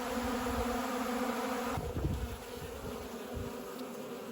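Honeybees buzzing in a steady hum as a spring apiary flies actively. A low thump comes about two seconds in.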